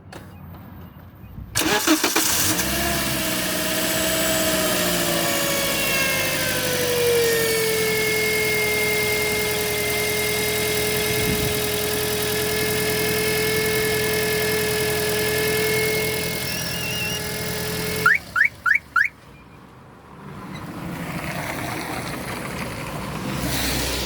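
Toyota Auris engine starting, then running with a steady pitched hum from under the bonnet. The hum settles lower in pitch over the first few seconds. It is the strange hum the owner traces to the alternator area, and he judges it does not sound like a bearing. Near the end the hum drops away and three quick chirps follow.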